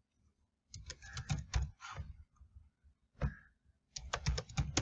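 Computer keyboard being typed on: a quick run of keystrokes about a second in, a single keystroke after a pause, then another quick run near the end, as a password is entered and confirmed.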